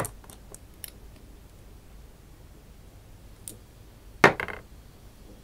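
Small glass bottle and dropper handled on a tabletop: a sharp click at the start, a few light clicks, then a short clatter of several knocks about four seconds in.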